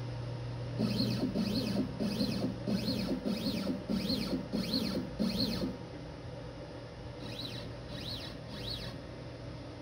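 X-Carve CNC router's stepper motors jogging the gantry in short moves. Each move is a brief whine that rises and falls in pitch as the motors speed up and slow down, about eight in a row a little over half a second apart, then three more after a short pause.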